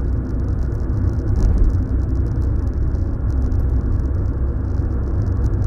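Car driving along a road, heard from inside the cabin: steady low engine and tyre rumble.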